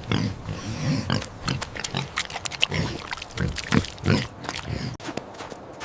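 A pig making a rapid, irregular series of short calls.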